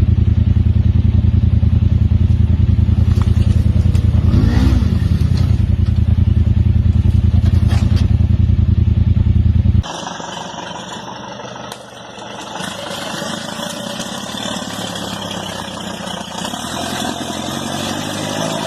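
Off-road vehicle engine running loudly with a low, fast, even pulse. About ten seconds in it cuts off suddenly to a quieter engine running under a broad rushing noise.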